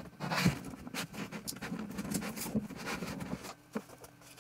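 Cardboard packaging being handled and worked open by hand: rustling and scraping with small knocks and scuffs, dying down about three and a half seconds in.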